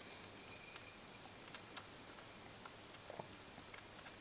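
Faint, scattered small clicks and taps of a thin blade cutting a flake of soft metal thermal-interface alloy against a wooden desk.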